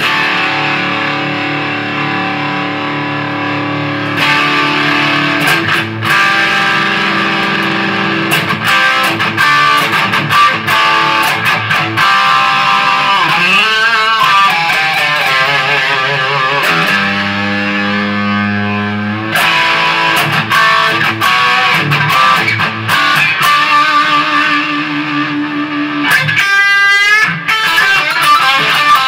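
Electric guitar being played: held notes and chords, with wavering string bends and vibrato in the middle, and a quick rising glide of notes near the end.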